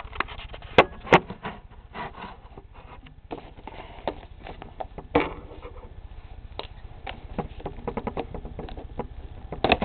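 Handling noise from hands opening a trading-card box on a table: two sharp knocks about a second in, another about five seconds in, then a run of small taps and scratches near the end.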